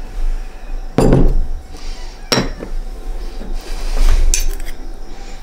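A metal spoon and ceramic dishes clinking: three sharp clinks and knocks, the loudest about a second in and again about four seconds in, as the spoon works in a ceramic salt pot and its lid and small bowls are handled.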